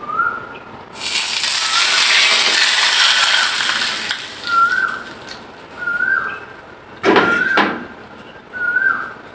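Very hot oil poured from a wok over a steamed fish, sizzling loudly for about three seconds starting a second in. A short clatter about seven seconds in as the wok is set back on the gas stove. A short whistled chirp repeats every second and a half or so throughout.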